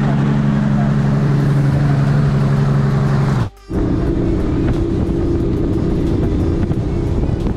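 A 150 hp outboard motor running steadily under way, a low even hum with rushing wind and water. About three and a half seconds in the sound drops out briefly and comes back with a higher hum and more wind and water noise.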